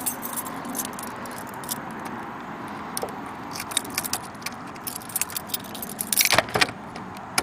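A bunch of keys jangling in hand, with scattered small metallic clicks and a louder burst of jingling about six seconds in.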